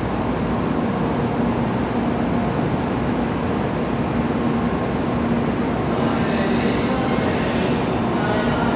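Steady noise and a constant low hum from shinkansen trains standing at the station platforms, with no break. Faint higher tones join about six seconds in.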